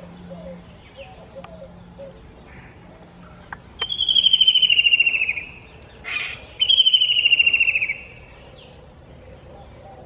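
White-throated kingfisher calling: two long, loud trills of rapid notes, each falling in pitch over about a second and a half, starting about four seconds in and again just under seven seconds in, with a short harsh note between them.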